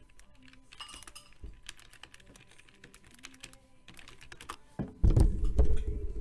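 Computer keyboard keys clicking in quick irregular runs as a web search is typed. About five seconds in there is a much louder low thump and rumble lasting about a second.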